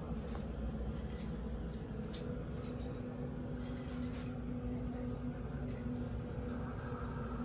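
Steady low background hum of an indoor room, with a faint steady tone and a few light clicks and rustles.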